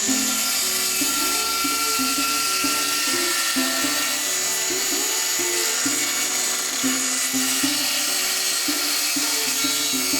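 Circular saw running at full speed and cutting through wood, a steady high motor whine, with background music with a steady beat playing over it.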